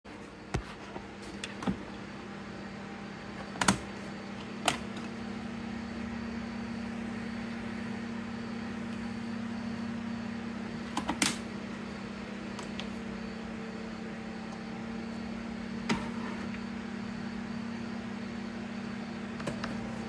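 A handful of sharp plastic clicks and knocks as an OXX Coffeeboxx single-cup coffee maker is handled, its K-cup holder opened and a pod set in place, over a steady low hum.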